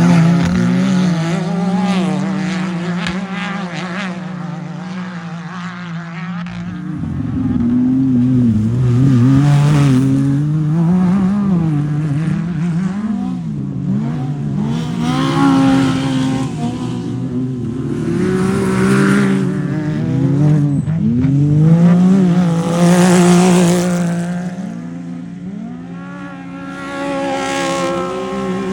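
Off-road race vehicle engines running hard, their pitch repeatedly rising and falling with revving and shifting. Several louder rushing surges come and go.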